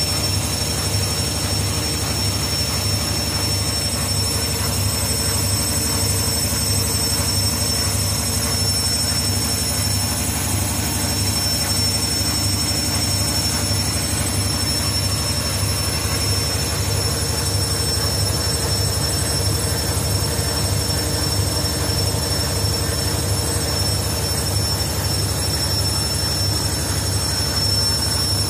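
Beko WM6152W front-loading washing machine on its spin cycle: the drum turning fast, with a steady low rumble, a quick even throb and a steady high-pitched motor whine.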